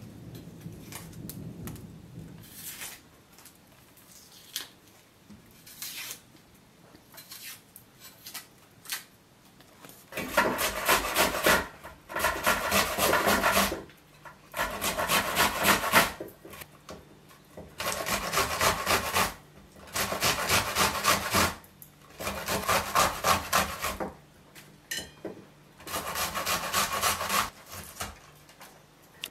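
Onion being grated on a metal hand grater, in about six runs of quick rasping strokes that start about ten seconds in, each run lasting one to three seconds with short pauses between. Before that there are only faint small clicks and rustling.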